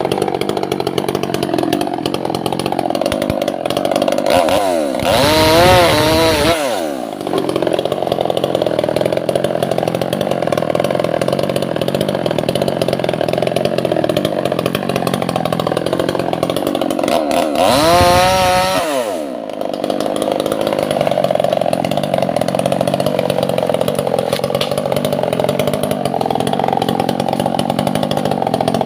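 Two-stroke chainsaw running steadily while cutting Albasia (sengon) wood, its engine pitch surging up and back down twice, about five seconds in and again near eighteen seconds.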